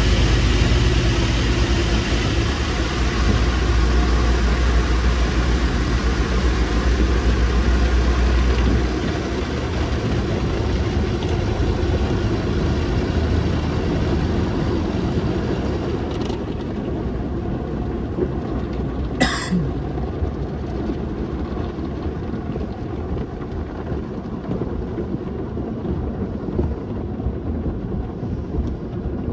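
Automatic car wash heard from inside the car: a steady rush of foam and water spray on the windshield over a low machinery rumble that drops away about nine seconds in. A single sharp click sounds a little past halfway, and near the end cloth wash strips sweep across the glass.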